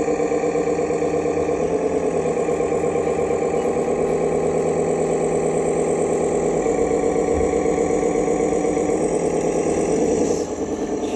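Radio-controlled construction vehicles running with a steady mechanical engine-like drone that shifts in pitch a few times.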